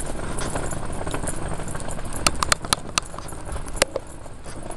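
Rumbling handling and street noise from a handheld camera carried along a concrete sidewalk. About two seconds in comes a quick run of about five sharp clicks, and one more click follows near the end.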